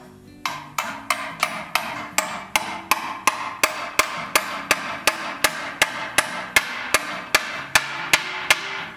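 Steady hand-hammer blows on a rivet set in the steel tire channel of a wooden buggy wheel, about three strikes a second, each with a short metallic ring. The blows start about half a second in and stop near the end.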